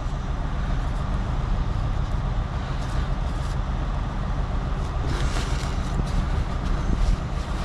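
Steady low drone of an idling engine, with wind and handling noise on the microphone and a short rustle about five seconds in.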